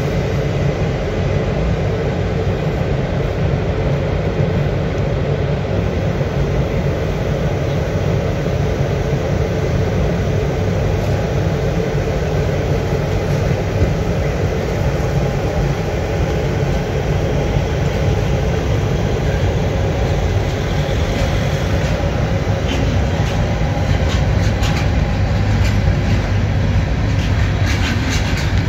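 Freight train hauled by two electric locomotives rolling slowly past, a steady rumble. Wheel clicks over the rail joints grow more frequent near the end as the wagons follow the locomotives.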